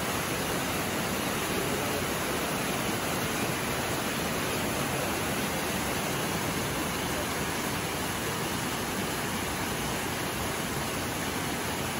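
Steady rushing of a small stream of white water cascading over rocks.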